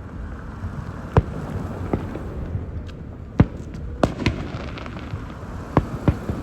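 Aerial fireworks bursting, with about seven sharp bangs at irregular intervals over a steady low rumble. The loudest bang comes just past halfway.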